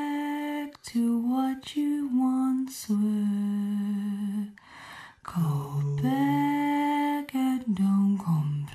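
A slow, lullaby-like melody of long held notes, hummed or sung without words, stepping between a few low pitches in short phrases, with brief pauses just under a second in and about halfway through.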